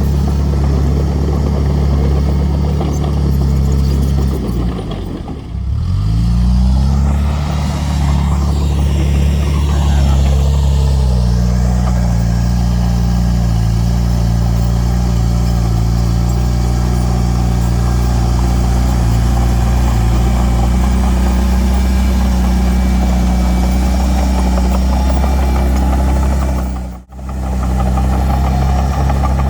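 Diesel engine of heavy earthmoving equipment running steadily. About five seconds in, its pitch drops sharply and climbs back up. The sound cuts out for a moment near the end.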